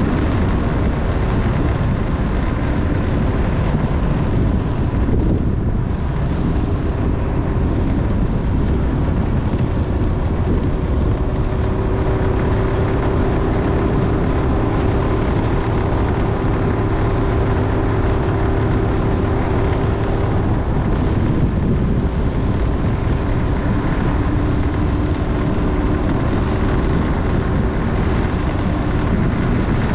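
Motorcycle engine running while riding, its note holding fairly steady, with wind rushing over the microphone.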